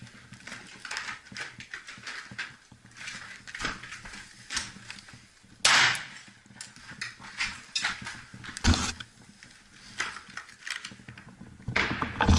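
Irregular sharp cracks, clinks and knocks, with a loud bang about halfway through, another a few seconds later, and a cluster of louder knocks near the end.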